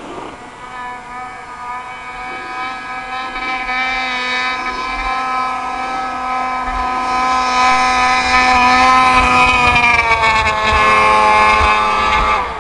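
Two-stroke snowmobile engine running at high revs as the sled carves across the snow, growing steadily louder. Its pitch falls about ten seconds in, and the sound drops away sharply near the end.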